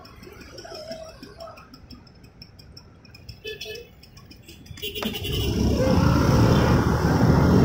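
Faint street traffic with a scooter passing. About five seconds in, a sharp click, then a loud low rumble of wind and handling noise on the phone's microphone.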